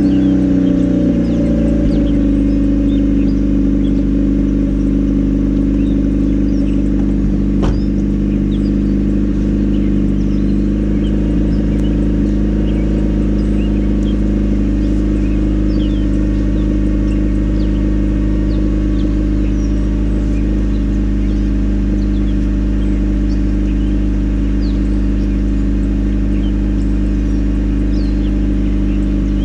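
Honda Civic engine idling just after a cold start: the revs drop over the first couple of seconds, then settle into a steady idle. Faint short high chirps sound over it.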